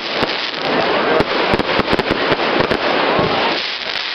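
Fireworks going off: many sharp bangs and pops over a continuous crackling hiss, easing a little near the end.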